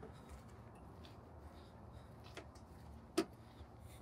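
A few faint, scattered clicks and knocks, the sharpest about three seconds in, over a low steady background.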